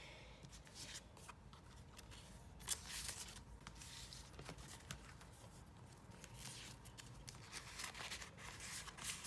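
Paper sticker sheets rustling and crackling as they are handled and slid into the sleeves of a small photo album, with irregular light clicks and one sharper crackle a little under three seconds in.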